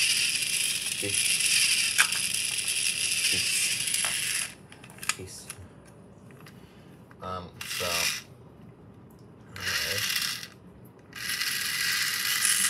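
Small motor and plastic gearbox of an opened robotic toy fish running with a high whirring rattle. It stops about four seconds in, then starts up again in three short bursts of a second or two each.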